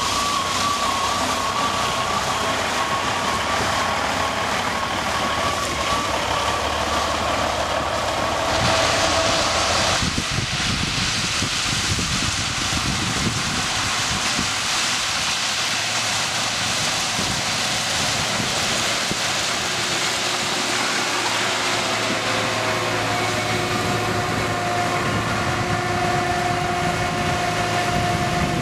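Railway track machinery at work: a hi-rail truck hauling a ballast hopper car rolls past on the rails with a steady high whine, then, after a sudden change about ten seconds in, a ballast regulator runs along the track spreading and sweeping crushed stone ballast, a dense rushing noise over its engine.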